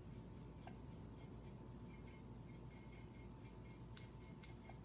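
Near silence: faint scratchy strokes of a paintbrush laying paint onto a ceramic piece, over a low steady hum, with a few faint clicks.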